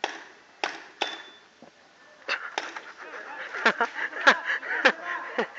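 Three sharp pops from paintball markers firing within about the first second, then several excited voices shouting from about two seconds in.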